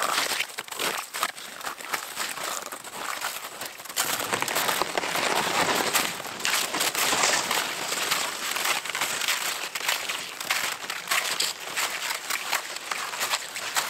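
Boots crunching and loaded toboggans scraping over packed snow as two people haul them uphill: a dense, irregular crunching that goes on without a break.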